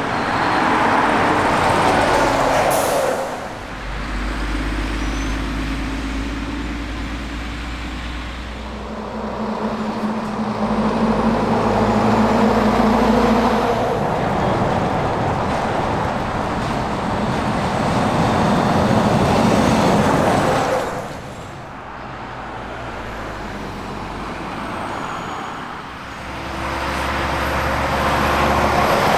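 Semi-trucks and cars passing by one after another, diesel engines and tyre noise swelling and fading with each pass.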